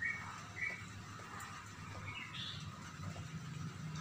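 A cat crunching dry kibble off a tiled floor, with a few short high bird chirps: one right at the start, one under a second in, and a higher one about halfway.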